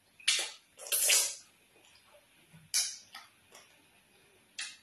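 Close-miked wet mouth sounds of eating slimy ogbono soup and fufu by hand: sucking and licking soup off a finger, then lip smacks and sticky chewing. A longer wet suck about a second in is the loudest; small clicks and smacks follow.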